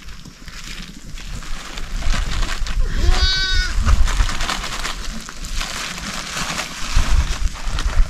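A single bleat from the flock of sheep and goats, one slightly wavering call just under a second long, about three seconds in. Around it, steady rustling and low thumps from the animals moving close by.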